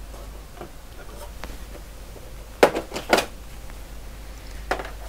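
The top cover of an Olympia ESW 100-KSR electric typewriter being lifted off and handled. A few sharp knocks and clatters sound, two close together about two and a half seconds in and another near the end, after a couple of faint clicks.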